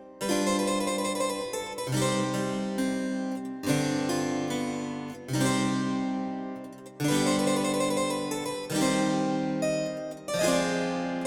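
Harpsichord background music: slow chords, each plucked sharply and left to ring away, about one every second and a half to two seconds.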